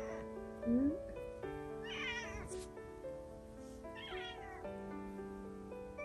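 Calico cat meowing: two long, wavering meows about two and four seconds in, with another starting at the very end, over background music of held notes.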